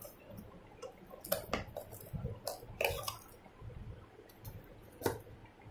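Cardboard boxes and plastic wrapping handled by hand: a handful of short crinkles and taps with quiet between them.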